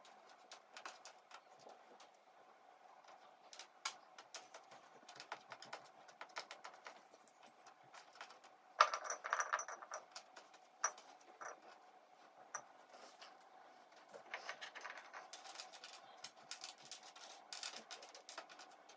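Cardboard jigsaw puzzle pieces clicking and tapping as they are picked up and sorted on a tabletop, with a louder clatter of pieces dropped into a ceramic dish about nine seconds in.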